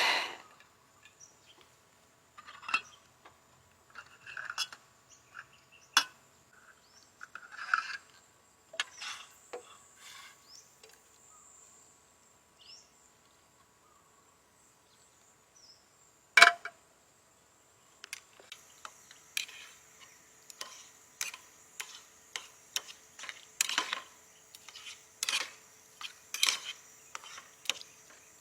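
Jungle ambience: a steady high insect drone with faint steady lower tones, and many short bird chirps and clicks scattered throughout, one sharper click about halfway through.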